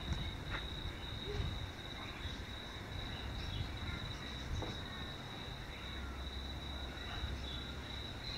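Crickets trilling steadily in one unbroken high tone, over a low, uneven background rumble.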